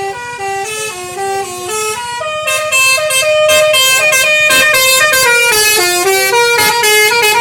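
Bus telolet (Basuri) multi-tone air horns playing a quick tune, the notes changing several times a second. Several horn tones sound together and grow louder from about two and a half seconds in.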